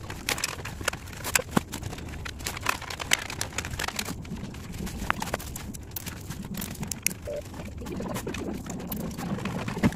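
Irregular clicks, taps and light rattles of gloved hands working inside an open desktop computer case, handling SATA power cables and a drive.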